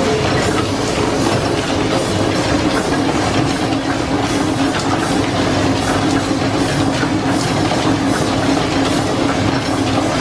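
Steam-driven line-shaft drive running: overhead shafting, pulleys and flat belts turning steadily with a rapid, even clatter over a steady hum.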